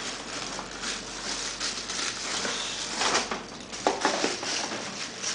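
Laptop packaging being handled during unboxing: irregular rustling and scraping, with a few louder knocks about three to four seconds in.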